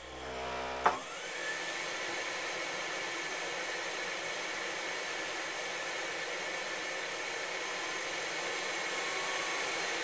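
Takagi T-K3 tankless gas water heater: a brief buzz and a sharp click about a second in, then a steady rushing hiss with a whine that rises and then holds steady.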